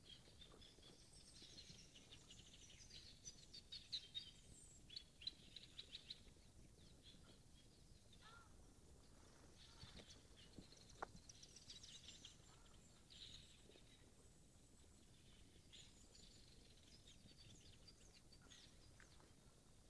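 Faint birdsong: small birds chirping and trilling in scattered bursts over a quiet background, with a couple of soft clicks near the middle.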